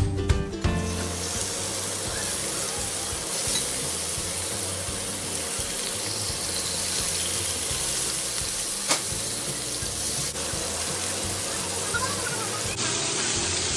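Food frying in hot oil in a pan: a steady sizzle, with one sharp click of a utensil about nine seconds in.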